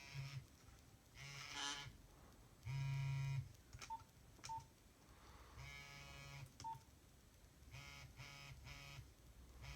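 Nokia 3310 mobile phone playing short, faint, buzzy monophonic ringtone snippets, with a few brief key-press beeps between them and a quick run of notes near the end.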